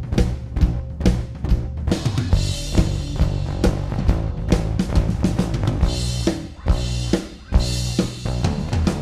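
Recorded drum kit and bass playing a groove: kick, snare and cymbals hit over a sustained bass line, heard as a compressed mix, with a short drop in level a little past six seconds.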